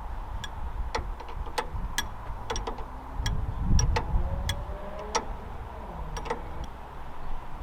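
Irregular sharp metallic clicks and clinks, roughly one or two a second, of hand tools and metal car parts being handled during suspension work.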